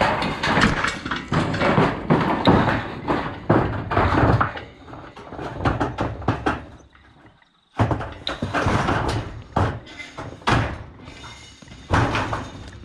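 Repeated bangs and knocks, with a short drop to near silence a little past halfway before they start again. The bangs are typical of a sheep drafting gate and yard panels being knocked as lambs are pushed through the race.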